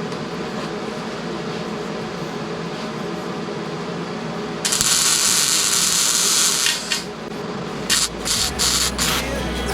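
Electric arc welding on steel: a steady hum, then about halfway through a weld hissing and crackling for roughly two seconds, followed near the end by several short tack-weld bursts.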